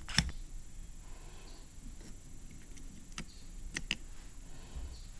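Sparse sharp clicks and taps of a screwdriver and small metal parts against a small-engine carburetor as its jet is screwed back in; the loudest click comes just after the start, with a few more around the middle.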